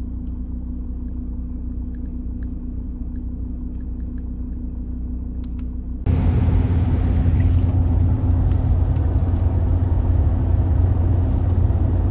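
Car interior sound: the engine idling as a steady low hum while the car stands still, with a few faint clicks. About six seconds in it switches abruptly to the louder, steady rumble of engine and tyres with the car cruising on a motorway.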